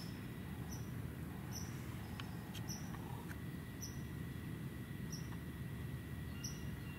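A small woodland animal giving sharp, high chip calls, repeated about once a second, over low, steady outdoor background noise. A faint, steady high-pitched tone joins about halfway through.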